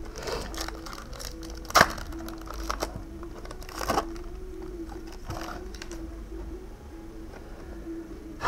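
Crackling and rustling of Pokémon booster-pack wrappers and cards being handled, with a sharp crack about two seconds in and a smaller one around four seconds, over faint background music.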